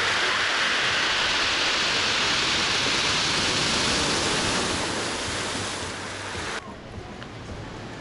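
Rough sea surf washing onto the beach: a loud, even rushing hiss that eases after about five seconds and drops away abruptly about six and a half seconds in, leaving a quieter hiss.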